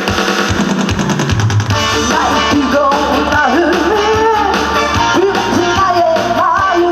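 A woman singing a Korean trot dance song over a loud backing track with a steady beat; the voice comes in about two seconds in.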